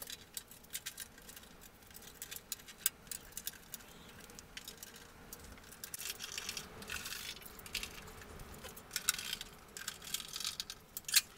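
Scattered light clicks and small metallic rattles as a chrome trim strip is fitted and fastened by hand onto a Chevrolet C10 steel tailgate.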